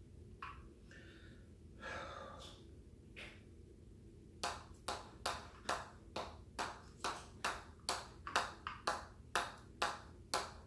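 Hammer drill strikes in a steady rhythm, about two and a half blows a second, beginning about four and a half seconds in after a few quieter knocks.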